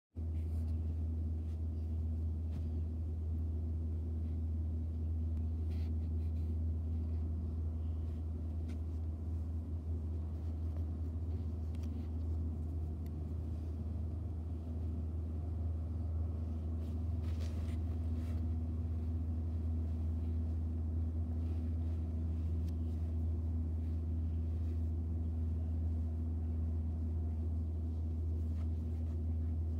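A steady low hum, unchanging throughout, with a few faint clicks.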